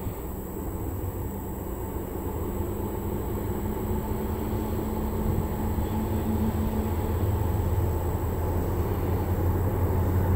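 Two GE Evolution-series (Gevo) diesel locomotives leading a freight train, their engines a steady low hum that grows gradually louder as the train approaches.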